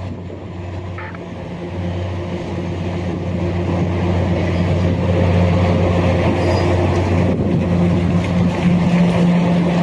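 Large diesel engine of heavy mining machinery running with a steady low drone. It grows louder over the first half and then holds.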